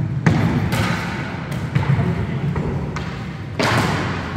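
Inline skate wheels rolling on a wooden sports-hall floor in a steady low rumble, with sharp clacks of hockey sticks striking the ball and the floor several times, echoing in the large hall.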